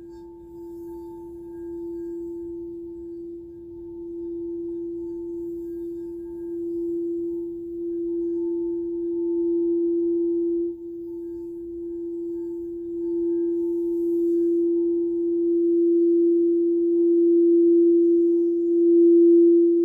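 Frosted quartz crystal singing bowl sounding one steady, sustained tone with a faint higher overtone, swelling gradually louder in slow waves; a little past halfway it drops briefly and then builds again.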